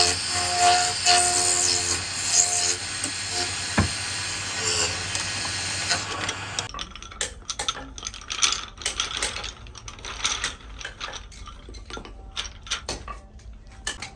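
A wood lathe turning a wooden bobbin blank, the cutting tool scraping the spinning wood with a steady, loud noise. About seven seconds in it cuts off abruptly, followed by a run of irregular sharp clicks and knocks.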